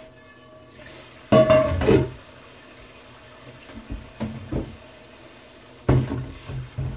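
Kitchen faucet running into a stainless steel sink as cast iron pans are rinsed, with two louder clattering spells of the pans being handled in the sink, about a second in and near the end, and a few lighter knocks in between.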